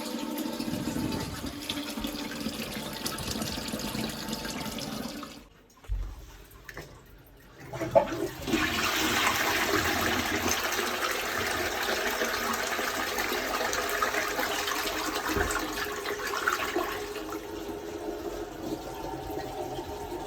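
Toilet being test-flushed after a clog was cleared. Water runs steadily at first and then goes quieter for a couple of seconds. About eight seconds in there is a clunk, followed by a loud rush of flushing water for around nine seconds, which eases into the quieter sound of the tank refilling.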